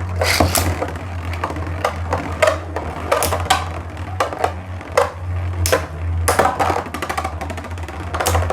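Spinning Beyblade tops (Tornado Leone and Tornado Destroyer) clashing in a plastic stadium: irregular sharp clacks over a steady low hum.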